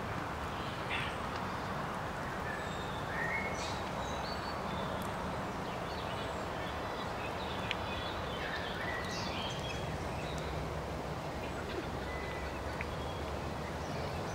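Open-air ambience: a steady low background noise with scattered short bird chirps and calls.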